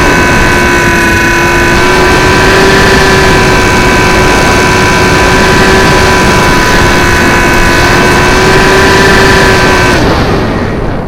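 Electric motor and propeller of a small RC airplane whining at a steady pitch, heard from onboard over heavy wind rushing on the microphone; the motor cuts off near the end, leaving mostly wind.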